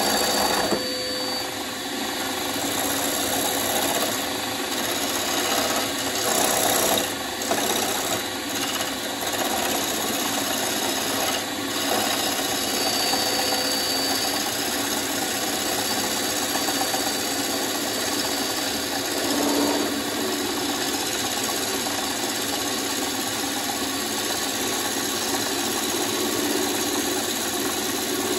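Wood lathe turning a bowl blank, a gouge cutting into the spinning wood with a continuous rasping shear that swells and eases a little as the cut goes on.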